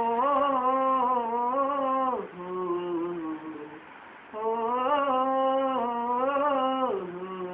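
A man singing a Punjabi song unaccompanied, holding two long wavering notes. Each phrase slides down to a lower note at its end.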